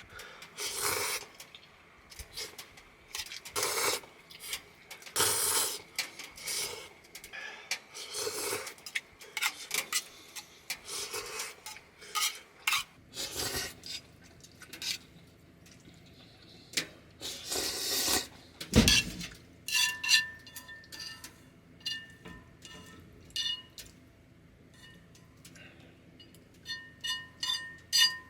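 Tableware being handled: scraping and rubbing of utensils on dishes, then from about two-thirds of the way in, many quick light clinks of a utensil against a metal cup, each ringing briefly.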